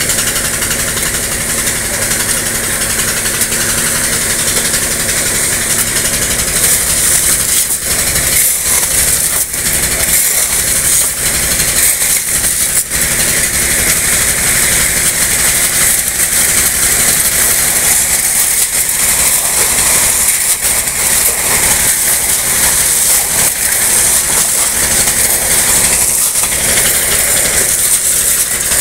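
Wet gravel and water gushing out of a pipe chute onto a heap of pebbles in a dump truck bed: a loud, steady rushing hiss, with a machine engine humming underneath. Now and then shovels clatter in the stones.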